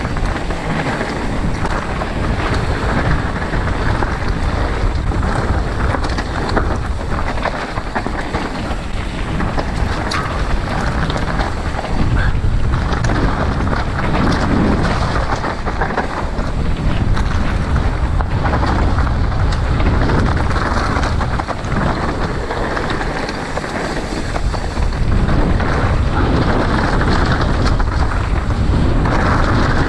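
Wind buffeting the microphone over the rumble and clatter of a mountain bike riding down a rough trail, with loose stones and bike parts ticking throughout.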